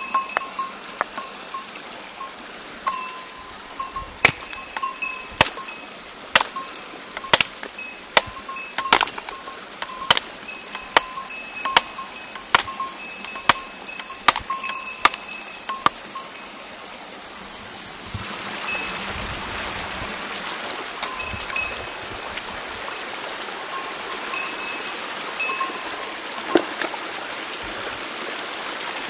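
A small bell jingling in short, repeated rings, mixed with many sharp knocks and clicks through the first half. About two-thirds of the way in, a steady rushing noise comes up and stays.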